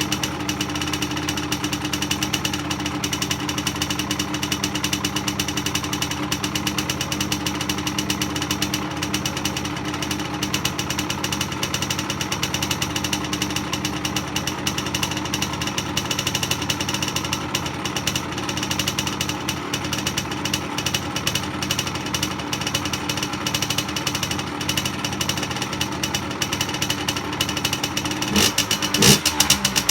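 Rieju MRT 50's 50cc two-stroke single-cylinder engine idling steadily through its stock exhaust with a rapid, even pulse, then starting to rev in short blips near the end.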